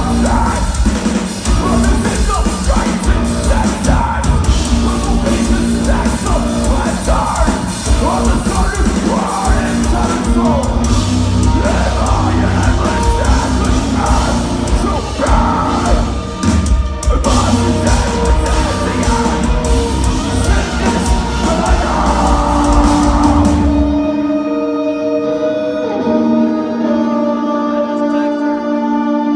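Live metalcore band playing at full volume: drums, heavy guitars and vocals. About 24 seconds in, the drums and low end drop out and only sustained ringing notes carry on.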